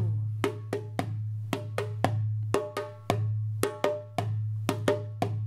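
Hand percussion struck in a steady rhythm of about two to three strokes a second, each stroke a short knock with a brief pitched ring.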